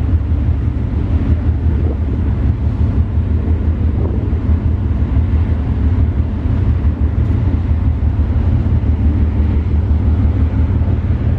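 Ferry's engines running with a steady low rumble underway, with wind buffeting the microphone on the open deck.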